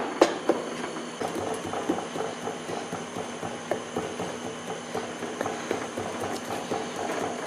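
Small hand rammer packing green sand into a molding flask: a few sharp knocks at the start, then a quick, even run of light taps.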